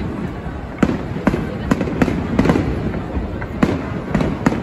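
Aerial firework shells bursting: a string of sharp bangs, several a second, with a pause about three seconds in, over a continuous low rumble of echoing reports.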